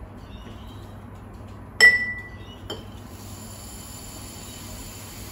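A glass jar clinks once sharply and rings briefly, with a lighter tap about a second later; then the faint, steady hiss of dry couscous grains pouring from a carton into the jar.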